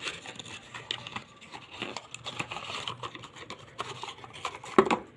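A cough syrup bottle and its packaging being handled: scattered rustles and light clicks, with a sharper knock near the end.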